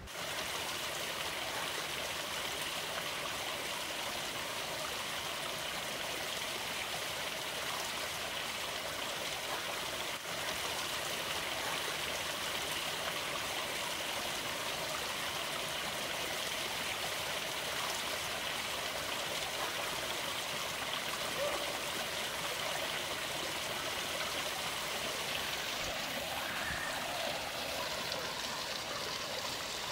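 Running water: a steady, even rushing hiss that sets in abruptly at the start and holds unchanged throughout.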